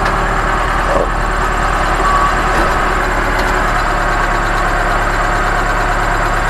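Ostrówek backhoe loader's Perkins diesel engine running steadily, heard from inside the cab, while the front loader's hydraulics tip the bucket of manure.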